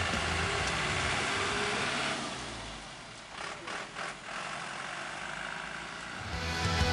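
Diesel engine of an LF 8/6 fire engine running as the truck drives off, fading away from about two seconds in. Music starts near the end.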